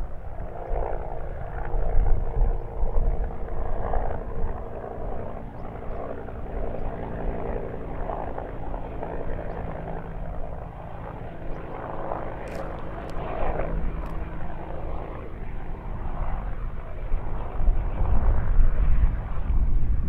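Steady drone of a distant engine, several even tones held throughout, over a low rumble.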